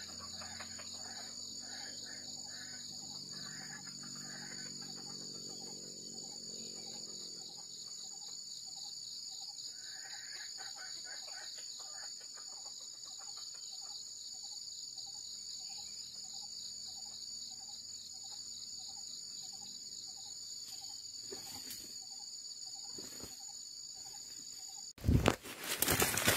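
Steady high-pitched insect drone, with a low chirp repeating about twice a second and a few short bird calls. About 25 s in, sudden loud rustling in dry grass and leaves as a red junglefowl thrashes.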